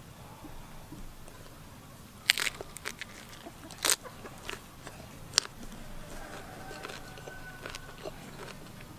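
Close-up crunching bites and chewing into a crisp raw green vegetable dipped in a chunky nut sauce. There are a few sharp crunches, about two and a half, four and five and a half seconds in.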